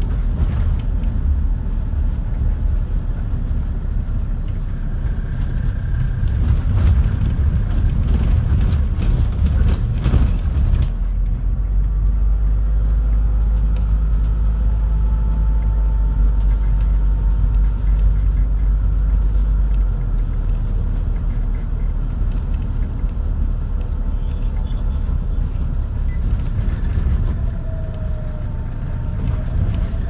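Toyota HiAce minibus driving, heard from inside: a steady low engine and road rumble with faint whines that rise and fall. The lowest hum changes about twenty seconds in.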